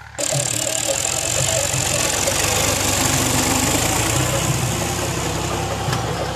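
Ghazi tractor's diesel engine running steadily under load close by while it drags a tine cultivator through cloddy soil. It comes in abruptly just after the start, loud, with a low engine rumble under a dense hiss.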